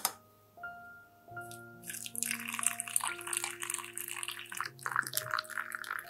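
Hot water poured from a kettle spout into the stainless-steel infuser of a glass teapot, splashing and bubbling as it fills, starting about two seconds in. Soft background music with piano notes plays throughout.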